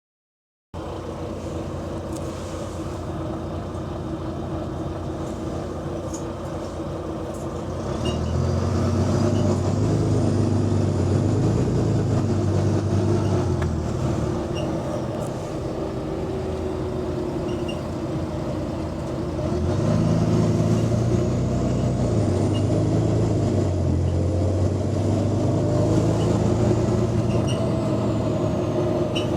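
Diesel bus engine running and twice pulling hard and accelerating, each pull lasting several seconds with a high whine rising and falling over it, then easing back. The bus has an exhaust leak.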